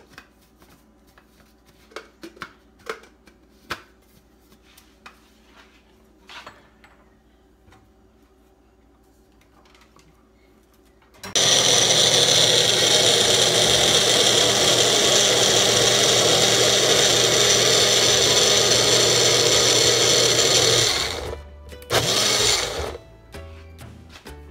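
A Magic Bullet personal blender is switched on about halfway through and runs loudly and steadily for about ten seconds, puréeing sliced mango with hot sauce. It winds down, then gives one more short pulse. A few light clicks and knocks come before it starts.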